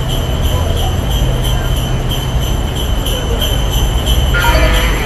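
Jingle bells shaken in a steady beat, about two or three shakes a second, over a loud, steady low rumble. About four seconds in, a tune starts to play over them.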